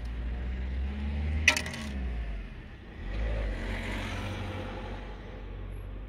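A single sharp plastic click about one and a half seconds in, as a small blade fuse is slid out of its plastic fuse puller, over a low steady rumble and some soft handling rustle.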